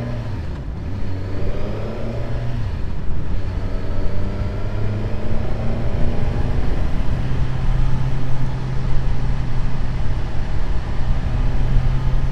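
Suzuki GSX-S 1000GT's inline-four engine accelerating, its pitch rising twice in the first five seconds as it pulls through the gears, then holding a steady note at cruising speed.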